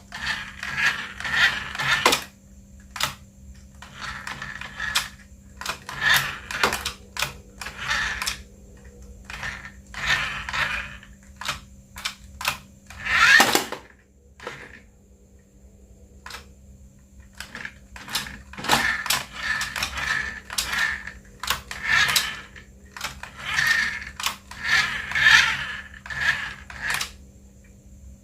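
Hands handling the toy and its packaging: repeated short bursts of rustling, clicking and scraping, with a pause about halfway through.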